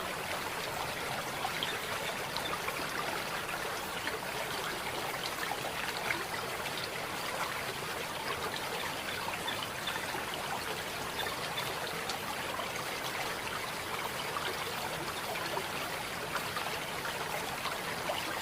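A small stream running and trickling steadily over stones, a constant babble of water.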